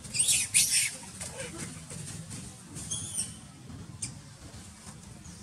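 Young long-tailed macaque giving high-pitched squeals: two loud bursts in the first second, and a shorter, weaker squeal about three seconds in.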